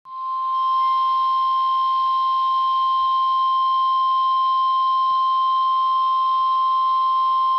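NOAA Weather Radio 1050 Hz warning alarm tone sounding through a weather radio receiver: one loud, steady single-pitched tone over light static. The tone signals that a warning broadcast follows, here a flash flood warning.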